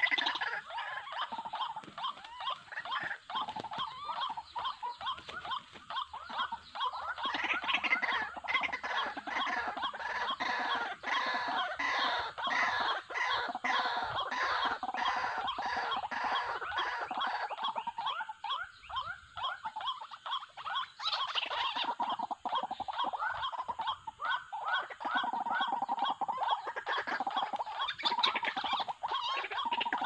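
White-breasted waterhen calls: a long run of rapidly repeated harsh notes, going on almost without a break, with a few short lulls.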